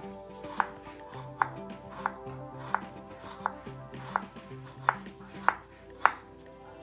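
Serrated kitchen knife slicing a peeled potato on a cutting board: about ten sharp knocks of the blade meeting the board, roughly one every two-thirds of a second, stopping shortly before the end. Background music with steady notes plays underneath.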